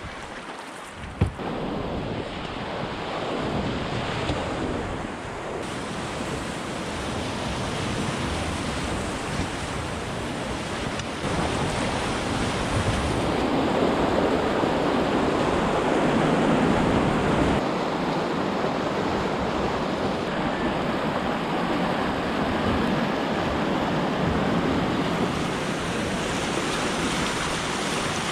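River rapids rushing around a raft, a steady wash of white water that grows louder about a dozen seconds in. A single sharp knock about a second in.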